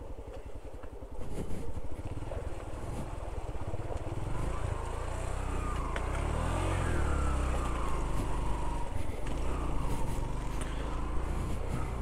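Heavy motorcycle engine running as the bike rides a rough, broken road, its pitch rising and then falling about halfway through.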